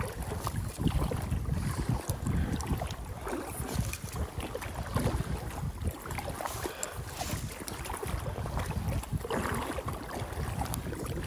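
Wind gusting on the microphone, with water lapping against a belly boat (float tube).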